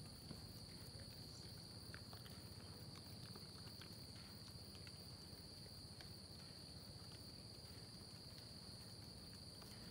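Faint steady insect chorus, a continuous high chirring held at two pitches, with a few faint light taps scattered through it.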